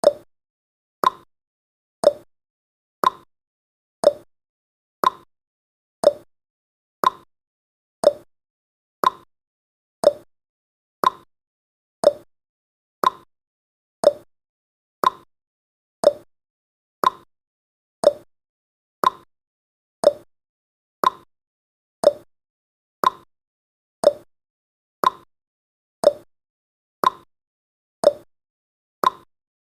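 Countdown timer sound effect: a short, sharp tick once every second, evenly spaced, with silence between ticks.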